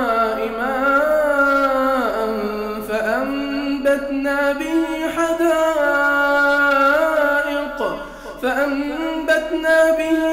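A man reciting the Quran in a slow, melodic chant, drawing out long sung vowels on 'mā'an' from Surah An-Naml. There is a short break for breath about eight seconds in.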